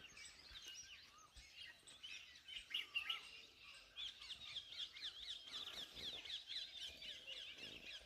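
Several small birds chirping together in quick, high, twittering notes. The chirping grows into a dense, continuous chatter about halfway through.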